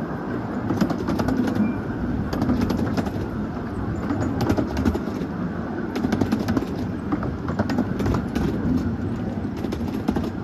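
Miniature steam locomotive making a steady hissing rumble with irregular clicks and knocks.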